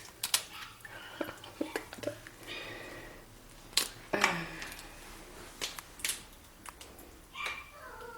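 Cooked lobster legs being pulled and snapped off the body: scattered sharp clicks and cracks of shell, some spaced out and some close together.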